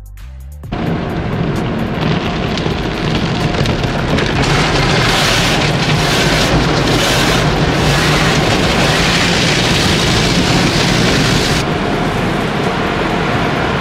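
Automatic car wash heard from inside the car: water jets and spinning foam brushes beating on the windshield and body, a loud steady rush. It starts suddenly, turns hissier from about four seconds in until shortly before the end, then cuts off.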